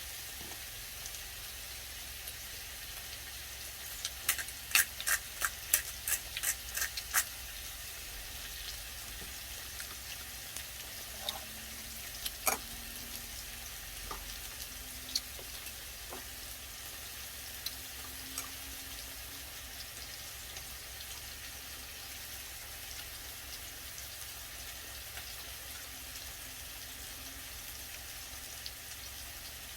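Beef frying in hot oil, a steady sizzle. A quick run of sharp clicks and pops comes about four to seven seconds in, with a few single clicks after.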